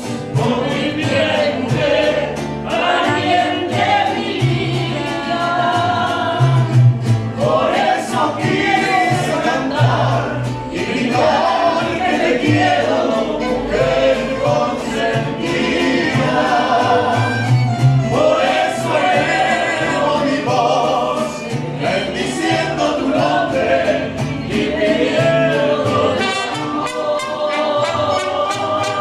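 Mariachi band playing, with several voices singing together over the instruments and deep bass notes sounding in a steady pattern.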